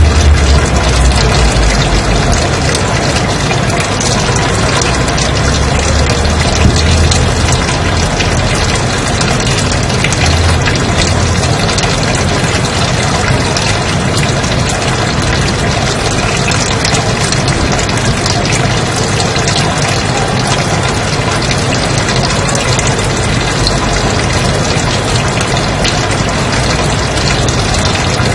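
Steady white noise: an even, unbroken hiss across all pitches, with a somewhat stronger low rumble in the first several seconds.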